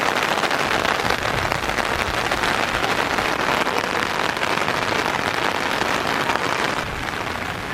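Steady rain falling: an even hiss of many drops with fine scattered ticks, easing a little near the end.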